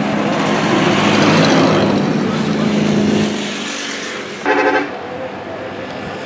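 A heavy truck passing close by, engine running with steady tyre noise, which drops away suddenly about three seconds in; then a short single blast of a vehicle horn from the road.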